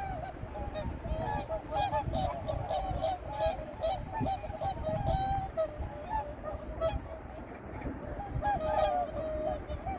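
A flock of whooper swans calling, many short honking calls overlapping without a break, over a low rumble.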